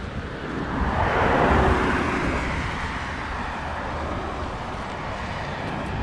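A car passing on wet asphalt: its tyre hiss swells to a peak about a second and a half in, then fades slowly, over a steady low street rumble.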